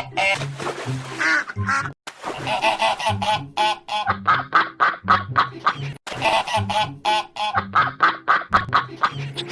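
Ducks quacking loudly in rapid, overlapping runs of calls. The sound cuts out abruptly twice, about two seconds in and again about six seconds in.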